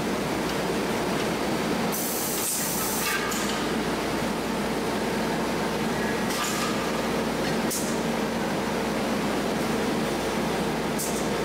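Pneumatic stations on an LPG gas-cylinder production line running with a steady machine drone and hum, broken by short hisses of compressed air released from the actuators: a longer one about two seconds in and three brief ones later.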